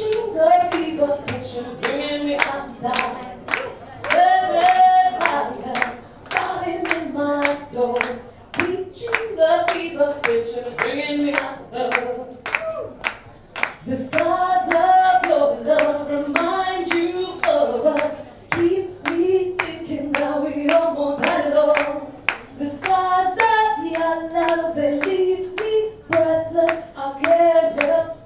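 A woman sings a melody into a handheld microphone while a small group claps along in a steady beat.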